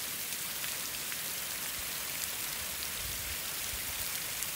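Water jetting up from the drilled orifices of pressure-dosed septic laterals and pattering back down onto the drain rock during a squirt test, a steady rain-like hiss. The jets stand over 5 feet high, a sign of good, even pressure across the distribution laterals.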